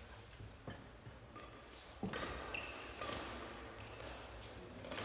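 Badminton rally: a shuttlecock struck back and forth with rackets, a handful of sharp hits roughly a second apart, the loudest about two seconds in.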